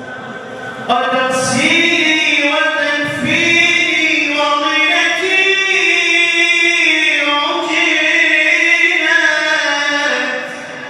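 A male voice singing long, held, ornamented notes in an Arabic vocal style, with no clear instrumental backing. The phrase comes in sharply about a second in and eases off shortly before the end.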